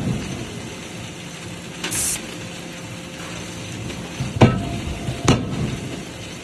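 Two hammer blows on hot metal in forging, about a second apart near the end, over a steady hiss and hum, with a short hiss about two seconds in.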